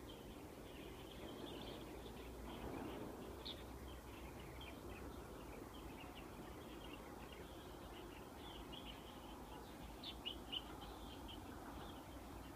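Small birds chirping in woodland: many short, high chirps overlapping throughout, with a few louder ones about ten seconds in, over a faint low background noise.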